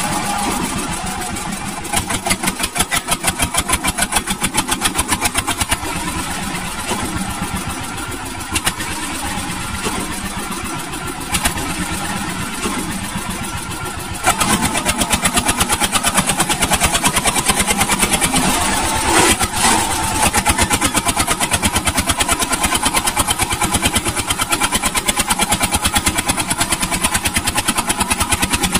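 Small engines of homemade miniature tractors running, with a rapid, even firing beat that gets louder about halfway through.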